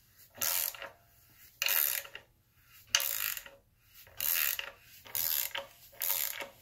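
Hand ratchet clicking in about six bursts, roughly one a second, as it turns the crankshaft bolt that draws a seal installer tool in to press a new front crankshaft seal into place.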